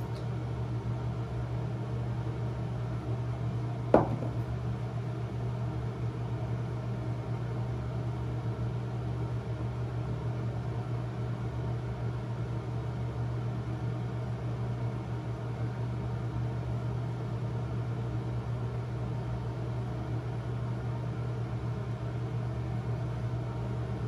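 Steady low hum of a fan running, with a single sharp click about four seconds in.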